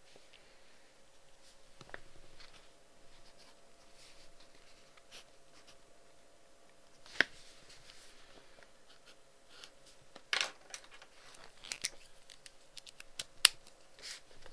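Close-miked handling sounds: light scratching and rustling with a few sharp clicks and taps, the sharpest about seven seconds in and in the last few seconds, over a faint steady hum.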